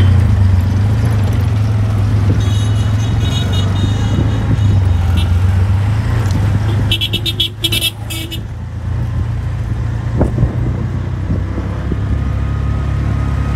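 Tuk-tuk (auto-rickshaw) engine running with a steady low drone as it rides through street traffic. A horn beeps in rapid repeated pulses about two and a half seconds in, and again louder in a short burst about seven seconds in.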